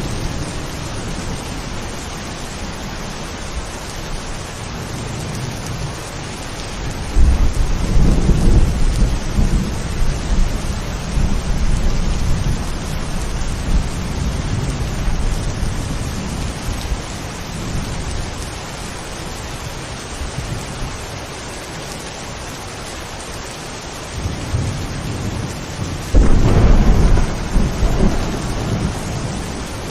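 Steady heavy rain with two long rolls of thunder, one about a quarter of the way in and a louder one near the end.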